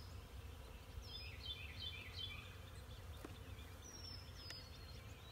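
Birds calling: several clear whistled notes, some sliding down in pitch, and quick runs of chirps, over a steady low rumble, with a few faint clicks.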